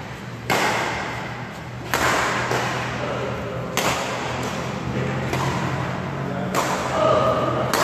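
Badminton rally: rackets striking the shuttlecock about every one and a half seconds, five or six sharp cracks, each echoing through a large hall.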